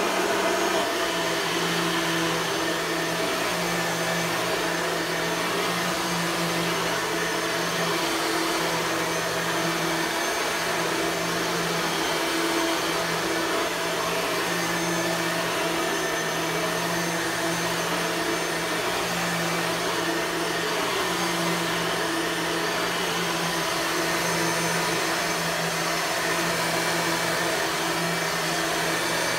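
Bissell 9-amp soft-bag upright vacuum cleaner from 1998 running steadily at full power: an even motor hum with a few constant tones over a broad rush of air.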